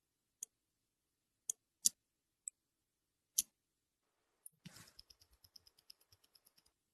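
Small, sharp metallic clicks from handling a Rolex watch and watchmaker's tools, a few seconds apart. About two thirds of the way through there is a short scrape, then a quick, even run of light clicks at about eight a second that stops shortly before the end.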